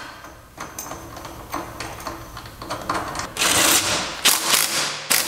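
Light metal clicks of washers and a nut going onto the steering shaft, then a cordless impact tool running in two short bursts in the second half, tightening the steering wheel's retaining nut.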